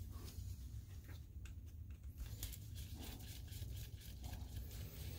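Faint scattered clicks and light scrapes of a screwdriver and gloved hands working screws out of a DLP projector's optic assembly, over a steady low hum.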